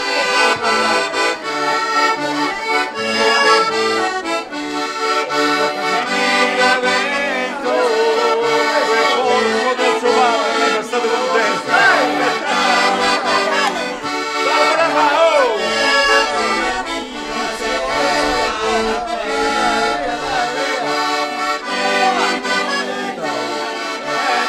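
Accordion playing a traditional tune, held chords and melody over a steady bass rhythm.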